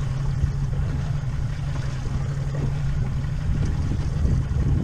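Boat engine running steadily, a low hum under a rumble of wind and water.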